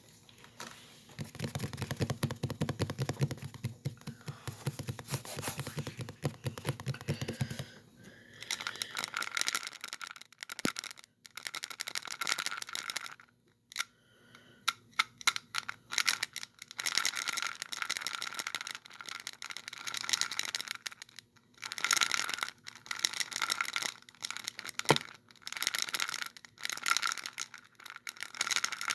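Close-miked rapid tapping and scratching on a laptop, in dense runs of small clicks broken by short pauses. The first run is duller and heavier; from about a third of the way in the clicks turn brighter and sharper.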